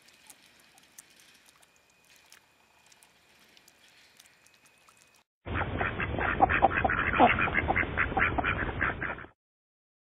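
Faint sound with small ticks for about five seconds, then a sudden loud chorus of waterfowl calls, many short calls a second, which stops abruptly.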